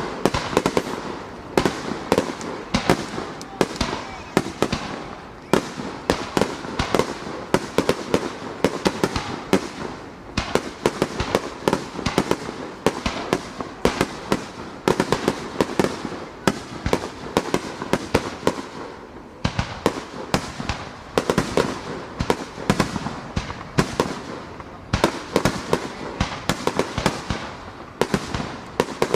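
Rapid-fire starmine fireworks: aerial shells bursting in quick, overlapping succession, a near-continuous barrage of bangs and crackles with a few short lulls.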